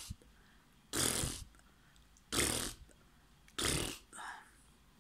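A woman blowing raspberries: three loud, spluttering blows with her tongue out between her lips, each about half a second long and about a second and a half apart, with a softer, shorter sound near the end.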